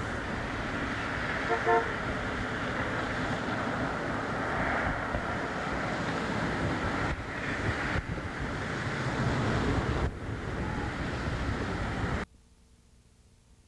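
Street traffic running steadily, with a brief car horn toot about a second and a half in. The sound cuts off suddenly near the end, leaving near silence with a faint hum.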